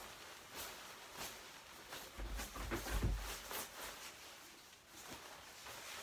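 Quilted nylon puffer jacket swishing and rustling in a run of short strokes as the arms swing, with a few dull low thumps around the middle.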